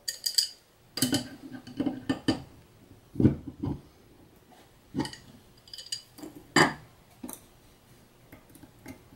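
Steel hand tools clinking and knocking against a metal ball screw bearing block while a jam nut is tightened on the ball screw. There are about ten separate, irregularly spaced metallic clinks; the loudest come a little over three seconds in and again past six seconds.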